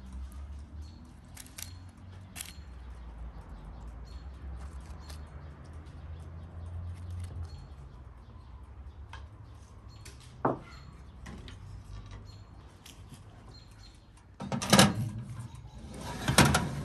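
Faint handling sounds and light chirps with a low hum, a single click about ten seconds in, then two loud clattering bursts near the end as the door of a countertop electric oven is opened and a metal pie pan is slid onto its rack.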